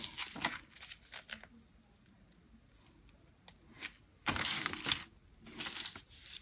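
Rustling and crinkling of small plastic bags of diamond-painting drills and the paper colour legend being handled, in short bursts, with a quiet stretch of about two seconds in the middle and the loudest crinkling after it.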